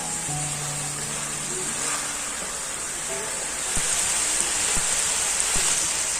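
Food sizzling in a hot pan: a steady hiss with a few pops, louder from about four seconds in, over soft background music.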